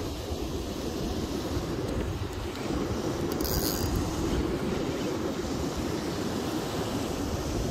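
Steady rushing of river rapids mixed with wind buffeting the microphone, with a short high hiss a little before halfway.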